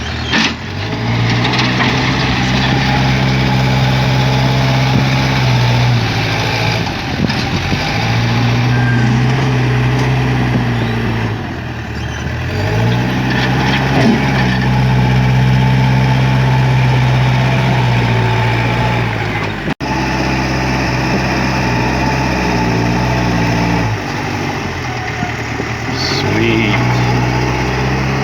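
Backhoe's diesel engine running hard under load as it moves dirt. Its pitch sags and climbs back several times, a few seconds apart. A brief dropout occurs about two-thirds of the way through.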